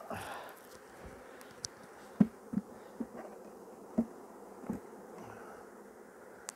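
Honeybees buzzing in a steady hum, with about five dull wooden knocks of hive frames being set into a box; the loudest knock comes about two seconds in.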